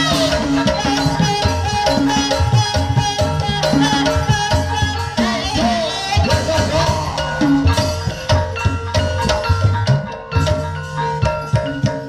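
Javanese gamelan music for an ebeg horse dance: bronze pot gongs and metallophones play a fast repeating melody over steady drum strokes.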